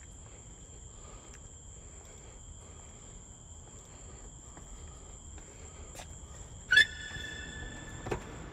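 Night insects, crickets, trilling steadily at two high pitches. About two-thirds of the way through, a sudden loud sharp sound sets off a high ringing tone that lasts over a second, with a smaller knock shortly after.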